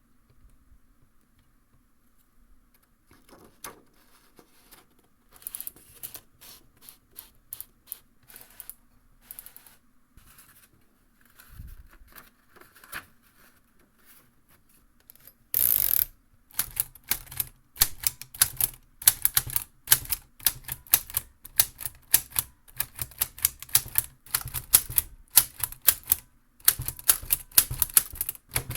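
Keys and typebars of a ROKR LK703B wooden model typewriter, a wood, plastic and metal kit, clacking as it types. Keystrokes are scattered and faint at first, then after a louder clunk about halfway through they become steady typing at about three strokes a second.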